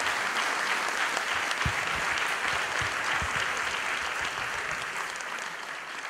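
Theatre audience applauding at the end of a song, steady at first and fading away toward the end.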